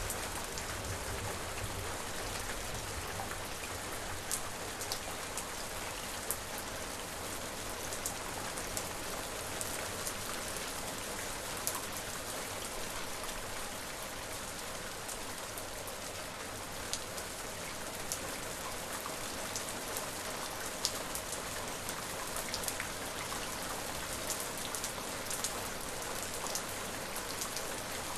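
Steady rain falling, a constant hiss with many separate drops tapping sharply on a surface.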